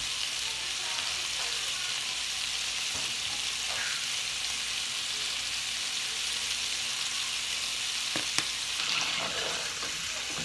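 Potatoes frying in hot olive oil in a pan, a steady even sizzle. A single sharp click comes about eight seconds in.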